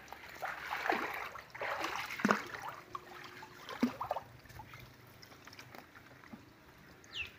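Pond water splashing and sloshing as men wade and work a fish net through it, with irregular splashes for the first few seconds that then settle to quieter lapping.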